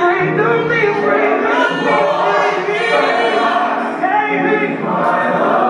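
Gospel choir singing loudly with music.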